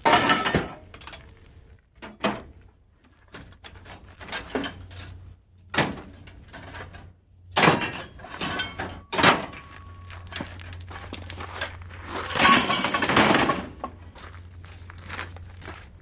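Scrap being handled and dropped: about half a dozen separate knocks and clunks, then a longer clattering rattle about twelve seconds in, over a faint low hum.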